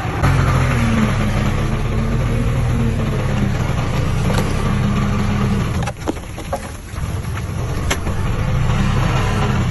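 Diesel engine of an earthmoving machine running steadily. It dips briefly about six seconds in, with a few sharp knocks, then picks up again.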